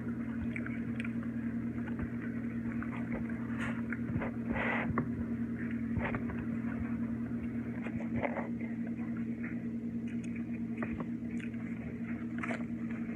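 Clothes dryer running in the next room: a steady machine hum, with a few small clicks close by.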